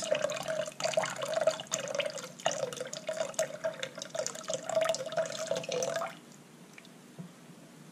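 Lye-water solution poured in a thin stream from a glass measuring cup into melted lard and coconut oil in a crock pot: a steady liquid trickle that stops about six seconds in. This is the lye being added to the fats to start saponification.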